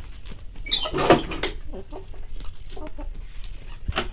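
Domestic hens clucking as they peck at scraps on gravel, with a louder, brief call about a second in and softer short clucks after it. A sharp tick comes just before the end.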